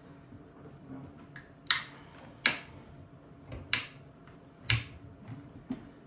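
About five sharp plastic clicks and snaps, roughly a second apart, from working the catches, controls and lid of a TotalFreeze 45 portable fridge-freezer as its lid is opened.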